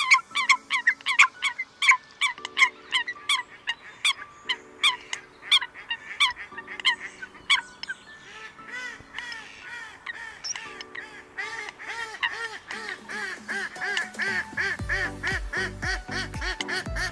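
Eurasian coots giving rapid flock calls: a dense run of short, sharp calls, about four or five a second, with a lower held note coming and going underneath. Low, fast pulses join near the end.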